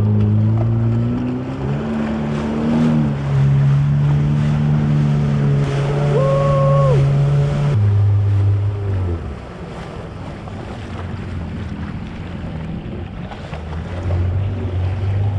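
Yamaha FX HO WaveRunner engine accelerating, its pitch climbing over the first few seconds and holding while under way, then throttled back to idle about eight seconds in. Water and wind noise run under it.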